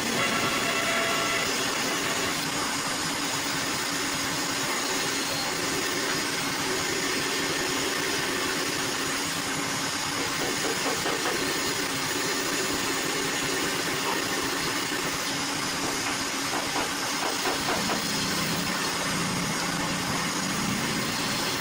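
A woodworking machine running steadily: a dense, even mechanical noise.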